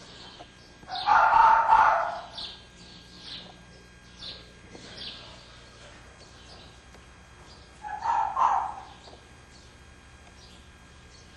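Caged foxes on a fur farm calling: two loud cries of about a second each, one a second in and one near eight seconds in, over a string of faint, high, short chirps.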